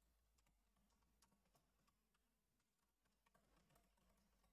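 Near silence, with faint, irregular clicks of typing on a computer keyboard.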